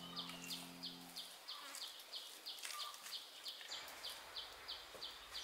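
Insect chirping in even pulses, about three a second, with a few faint clicks. Background music fades out in the first second.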